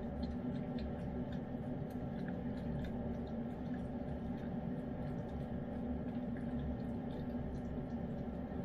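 Lynx point Siamese cat eating wet chicken pâté cat food, with many small wet smacking and licking clicks over a steady low hum.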